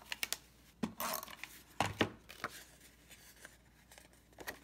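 Small clicks and knocks of craft handling: a plastic adhesive tape runner set down on the tabletop and cardstock being picked up and moved. Several sharp taps come in the first two and a half seconds, the loudest about two seconds in, then only faint rustling.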